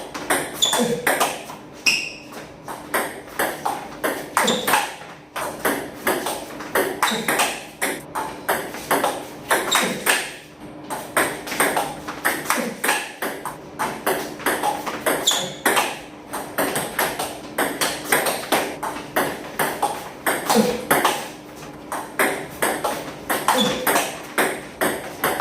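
Table tennis balls being struck by rackets and bouncing on the table in a fast, steady series of sharp clicks, about three or four a second.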